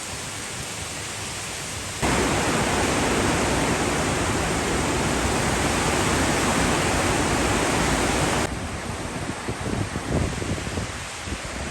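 Typhoon wind and heavy rain: a steady rushing noise that jumps much louder about two seconds in and drops back abruptly near the end, with gusts buffeting the microphone in the last few seconds.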